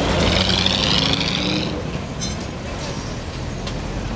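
An electric city transit vehicle running, with a high whine that rises slightly in pitch for the first second and a half over a steady low rumble, then a couple of short clicks.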